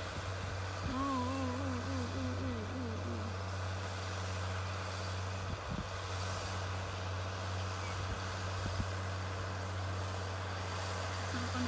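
Distant tractor engine running steadily as it ploughs the field. About a second in, a wavering tone wobbles up and down for about two seconds, and a short falling tone comes near the end.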